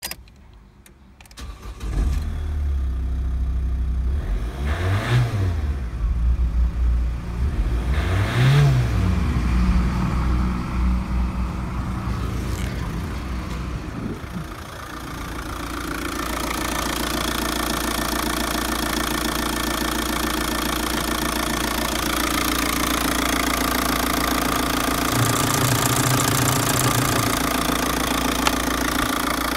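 Opel Astra G's Y17DT 1.7-litre four-cylinder turbodiesel starting about two seconds in, revved up and back down twice, then settling to a steady idle. In the second half it is heard closer, from the open engine bay, with more diesel clatter.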